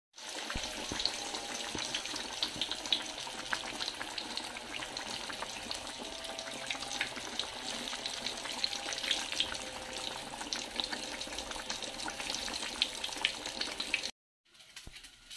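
A slab of pork frying in hot oil in a wok, sizzling steadily with many small crackling pops. It cuts off abruptly about fourteen seconds in.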